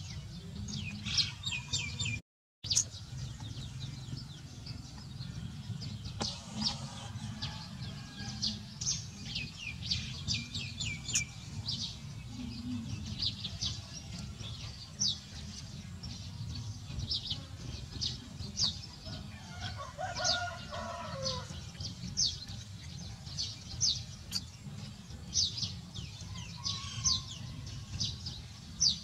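Small birds chirping all through, with many quick, short high chirps over a steady low outdoor rumble. A brief lower falling call sounds around twenty seconds in, and the sound drops out for a moment just after two seconds.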